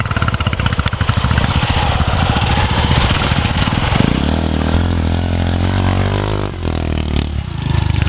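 Motorcycle engine running hard, then held at higher revs from about halfway with its pitch rising and falling and a brief dip, as a bike stuck in deep sand is worked free.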